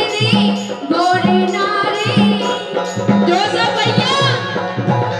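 Live Bundeli Rai folk music: a male singer singing through a microphone over a steady hand-drum beat and jingling percussion.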